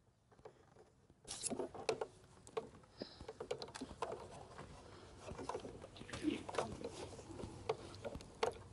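Faint handling noise of a cable being moved and fastened along a trolling-motor shaft: scattered small clicks and rustles, starting about a second in.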